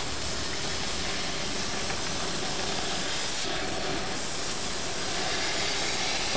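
DHC2000 oxy-acetylene torch flame hissing steadily as it works a metal plate.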